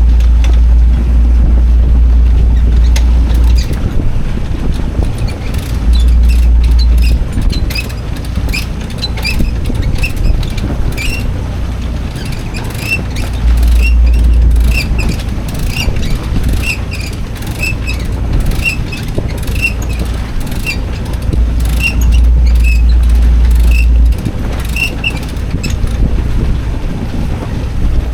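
Wind buffeting the camera microphone on a sailboat, in loud gusts lasting a few seconds each, with quieter stretches between. Through it come many short, high squeaks at an uneven pace.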